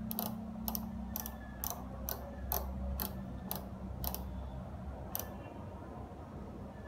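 Microwave oven's control clicking about twice a second as the cooking time is set, stopping about five seconds in, over a steady low hum.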